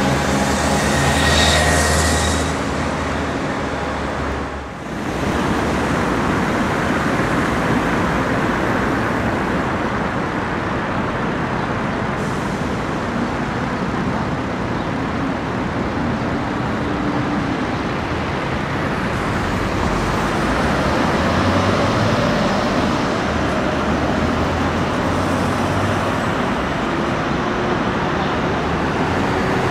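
A tram ride with the steady hum of the traction motors and the running noise of the moving tram. About five seconds in it gives way to steady city road-traffic noise as a Paris T3 tram, an Alstom Citadis, approaches along the boulevard.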